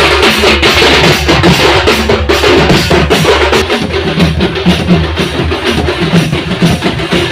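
Loud dance music with heavy bass and a driving drum beat, played through a DJ sound system.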